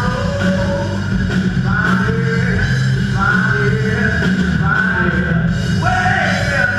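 Live rock band playing: a singer over electric guitars, bass and a drum kit, loud and steady, amplified and heard from the audience.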